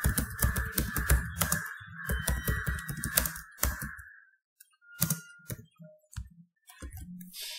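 Computer keyboard typing: rapid runs of keystrokes for the first few seconds, then slowing to a few scattered clicks.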